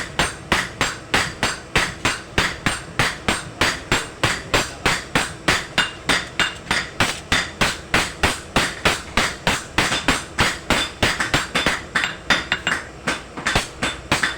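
Steady, rapid hammer blows on metal, about three to four strikes a second, each with a short metallic ring: a blacksmith forging a dagger blade on an anvil.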